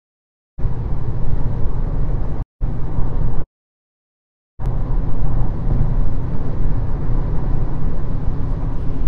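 Loud, even rumbling noise picked up by a phone's microphone on a live stream. It starts suddenly after dead silence and drops out to dead silence twice, the stream's audio cutting in and out while the connection recovers.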